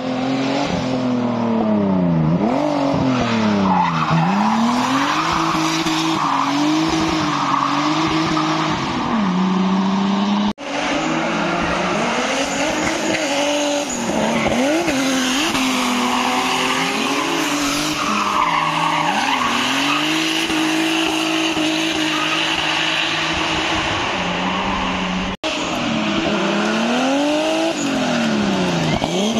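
Drift car sliding through bends: its engine revs up and down over and over in quick rising and falling sweeps, and the tyres squeal continuously. The sound breaks off for an instant twice.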